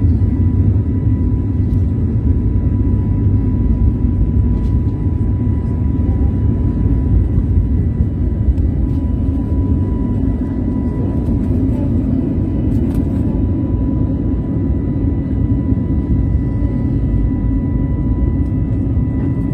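Jet airliner engines at takeoff thrust, heard from inside the cabin by the wing: a loud, steady low rumble with a thin, steady whine above it, through the takeoff roll and lift-off.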